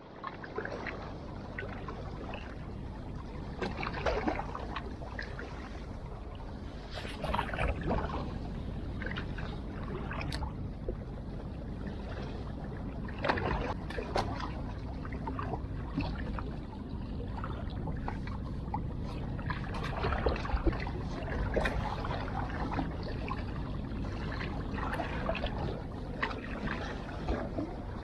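Sea water washing and sloshing at the shore in irregular surges every few seconds.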